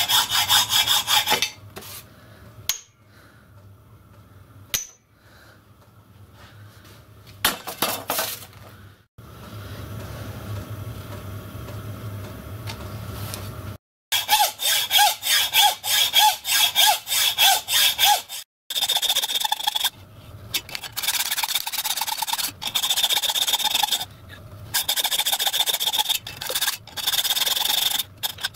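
Hand hacksaw cutting through a solid cast-iron block held in a bench vise: quick back-and-forth strokes, about two a second, in several runs with short pauses. A quieter stretch in the middle holds a few light clinks.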